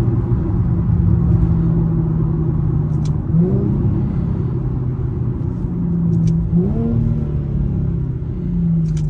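Infiniti G37 sedan's 3.7-litre VQ V6 through a muffler-deleted exhaust, heard from inside the cabin under way: a steady drone, then twice a quick rise in engine pitch that eases back down, the sound of downshifts. A short click comes just before each rise, and again near the end.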